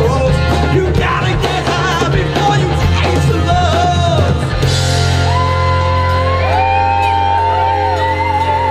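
Live rock band with horns and male and female singers playing through a PA. About halfway through the drums stop and the band holds a sustained chord while long, wavering held notes ring out over it.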